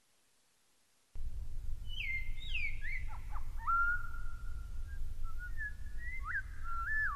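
A run of clear whistled notes that glide down or up and then hold a level pitch, some for over a second, over a steady low rumble that starts about a second in.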